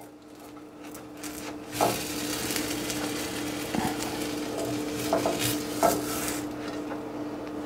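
An egg-white crepe sizzling in a nonstick frying pan on a gas burner; the sizzle sets in with a clack about two seconds in, and a silicone spatula clicks and scrapes against the pan a few times. A steady low hum runs underneath.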